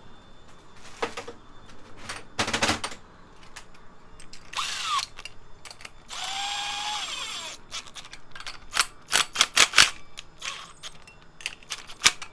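A small cordless power driver spins nuts down the cylinder studs: a brief burst about four seconds in, then a steadier run of about a second and a half that winds down in pitch as it stops. Metal clinks and knocks of the nuts, tool and studs come around it, loudest in a quick run of clicks near the end.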